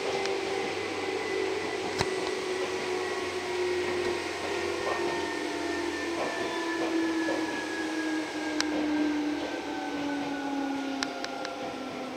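Tokyu 8500 series electric train heard from inside the car, its motor and control whine slowly falling in pitch over a low running rumble as the train slows to a stop. A few sharp clicks near the end.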